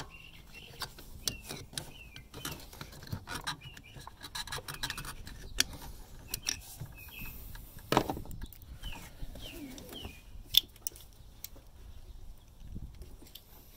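Irregular metal clicks and scrapes of a flathead screwdriver prying a rubber coolant hose off a thermostat housing, breaking the hose free. Small birds chirp in the background.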